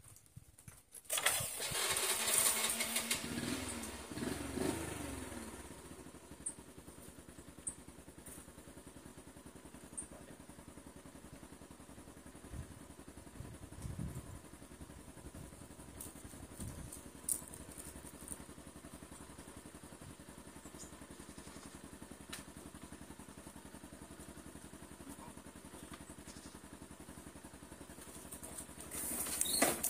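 Small motorcycle engine starting about a second in and revving briefly, the revs falling away to a steady idle, then revving up again near the end.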